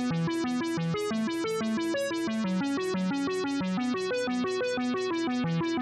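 Background music: a synthesizer melody in a quick, steady run of short notes at an even level.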